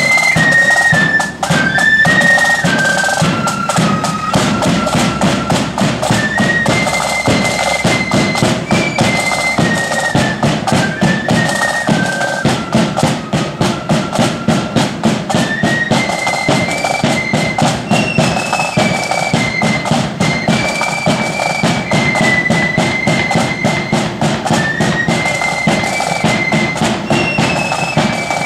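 Blood-and-thunder marching flute band playing a tune in unison on flutes, driven by a steady beat of drums.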